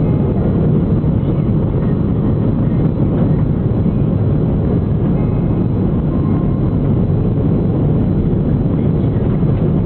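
Steady low rumble of a jet airliner heard from inside the cabin: the engines and the rush of air over the fuselage, unchanging throughout.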